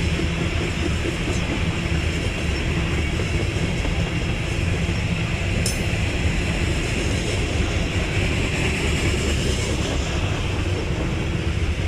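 Freight train of CSX coal hopper cars rolling past, a steady rumble of steel wheels on the rails, with one sharp click a little before halfway through.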